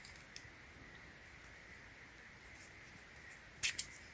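A few sharp clicks from handling the patch kit's small plastic parts: one light click just after the start and a quick pair of louder clicks near the end, over faint steady hiss.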